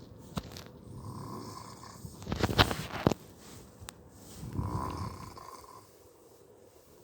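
Snoring: a rough snore on each breath, coming every couple of seconds. The loudest is about two and a half seconds in, another comes near five seconds, and it goes quieter toward the end.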